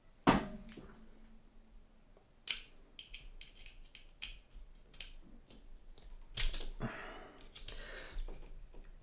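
Handling noise from a scope mount being unfastened from a paintball marker's rail: a sharp knock with a short ring near the start, then scattered small clicks and a brief scrape.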